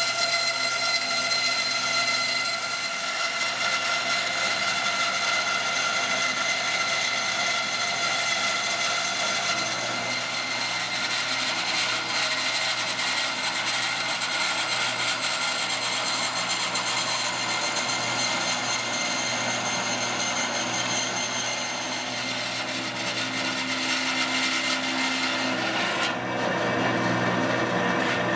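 Bandsaw running with its blade cutting through thin aluminum sheet: a steady machine whine with the noise of the cut over it.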